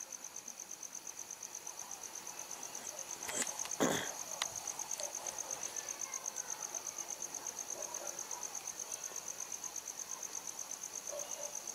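Steady insect chirping in a fast, even pulse, with a few sharp clicks about three to four seconds in, from pliers working the wire ends.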